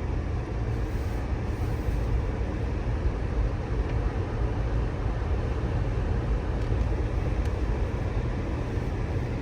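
Car driving along, with a steady low rumble of engine and road noise heard inside the cabin.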